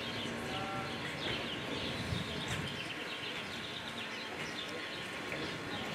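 Many small birds chirping continuously, a steady stream of short, quick calls over a low background rumble.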